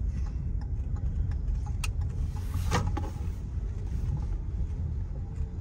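Car driving, heard from inside the cabin as a steady low road and engine rumble, with two short clicks about two and three seconds in.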